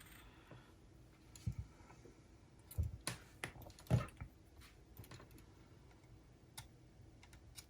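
Scattered light clicks and taps of small tools and tiny parts being handled on a minidisc player's disc mechanism, about ten in all, irregularly spaced, the loudest around three and four seconds in.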